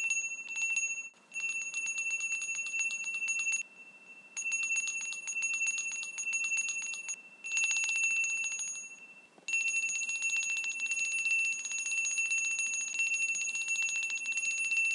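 A small bell rung with rapid, continuous strikes, giving a high, bright ring. It comes in bursts: two short ones in the first second, then runs of a few seconds each with brief pauses between, and a long final run from about halfway on.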